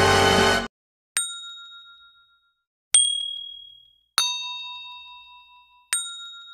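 Intro music cuts off, then four separate bell-like ding sound effects, each struck once and ringing away over about a second, each at a different pitch.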